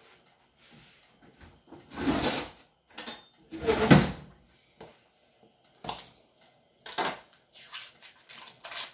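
A kitchen drawer sliding open and then shut: two loud scraping thuds, about two seconds apart. Near the end come light rustles and clicks as a stick of butter's paper wrapper is pulled open.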